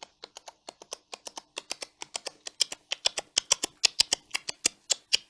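Mouth mimicry of several horses galloping: a run of sharp clicks imitating hoofbeats, sparse at first, then quickening into a dense, louder clatter.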